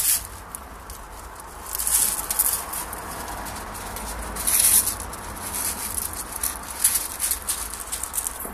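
Loose gravel crunching and pattering underfoot in scattered small clicks, with louder bursts about two seconds and four and a half seconds in.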